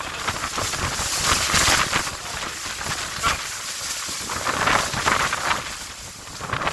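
Strong gale-force wind gusting, a noisy rush that swells and eases every second or so, buffeting the microphone.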